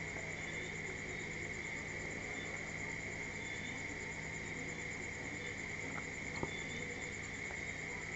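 A steady high-pitched trill or whine with a low hum beneath it, unchanging throughout, with a few faint ticks in the second half.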